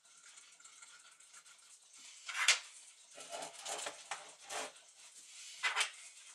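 Clinks and rattles of a brass clock movement being handled and turned over, its loose parts knocking. There is a sharp knock about two and a half seconds in, a run of rattling knocks just after, and another sharp knock near the end.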